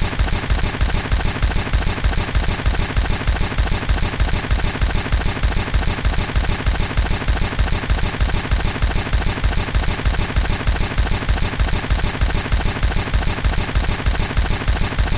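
Broken, glitching audio: a loud, harsh burst of noise repeating at a fast, even rate of about six times a second, like a rapid rattle.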